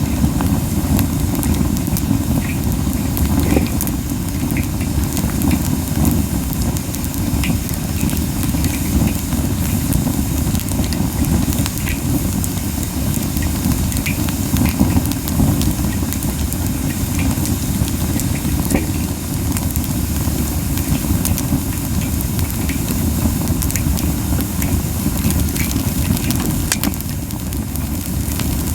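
Camellia-wood campfire burning hot: a steady low puffing rumble of strong flames (the fire is burning too fiercely), with scattered sharp crackles and pops.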